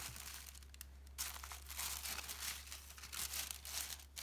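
Thin tissue paper rustling and crinkling as it is lifted and unfolded by hand, in uneven bursts with a short pause about a second in.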